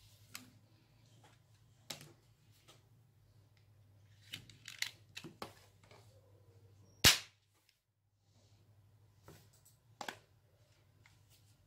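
Plastic toy guns being handled, giving scattered plastic clicks and knocks, with one much louder sharp snap about seven seconds in.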